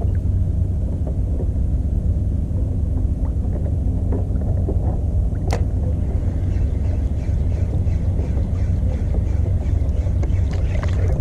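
Small 2-horsepower outboard motor running at a steady speed, pushing the kayak along, with a single sharp tick about halfway through.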